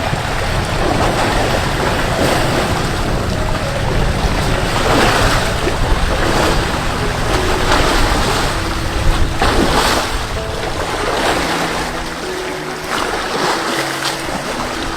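Wind buffeting the microphone: a loud, steady rushing noise with a heavy low rumble and gusty swells. Faint soft music of slow held notes plays underneath.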